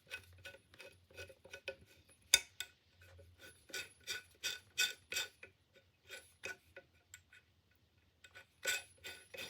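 Light metallic clicks and taps from the small parts of a hand planer's blade-adjustment screw mechanism being handled and screwed back together, irregular, with one sharper click about two and a half seconds in and a short lull near the end.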